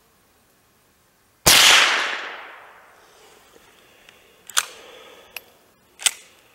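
A single .22 LR rifle shot from an FN-made Browning Trombone pump-action, a sharp crack whose echo dies away over about a second and a half. About three seconds later come a few sharp metallic clicks as the pump forend is worked back and forward to eject the case and chamber the next round.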